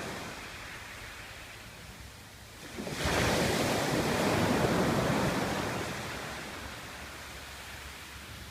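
Sea waves on the shore: a low wash, then a wave breaks sharply about three seconds in, and its surge slowly fades over the next few seconds.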